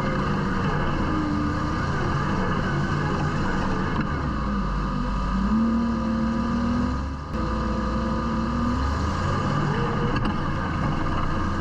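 Side-by-side UTV engine running under load while rock crawling, its pitch rising and falling several times as the throttle is worked, with a brief let-off about seven seconds in.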